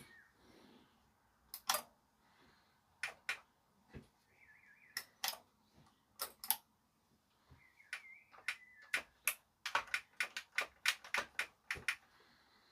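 Sharp mechanical clicks from the JVC RX-320V receiver's power switch and relay being worked: a few scattered clicks, then a quick run of about a dozen near the end, as the faulty power button makes the unit cut in and out.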